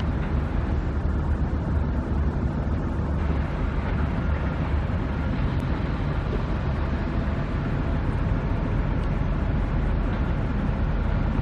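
Steady low engine rumble of an idling motor vehicle, even throughout.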